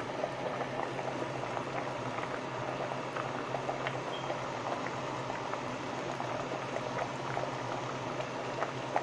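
Pot of pinto beans with bacon bubbling steadily at a simmer as the beans cook down: a dense, even patter of small bubbles popping, with a steady low hum underneath.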